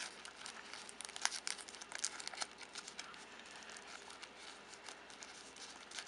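Paper-wrapped adhesive bandages (band-aids) crinkling and rustling as they are handled and pushed into a fabric pouch: a run of small, quick crackles, thickest in the first half, then thinning out.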